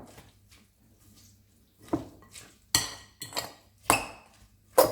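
Utensils tossing a salad in a bowl, knocking and clinking against its side in separate strikes, mostly in the second half, some ringing briefly.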